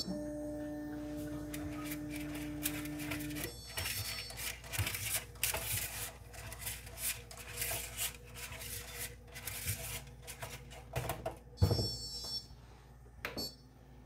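Prusa XL 3D printer as filament loading begins: a click, then a steady hum for about three and a half seconds, then a string of irregular clicks and rattles as filament and its tubing are handled at the toolhead, with two short high whines, the second near the end.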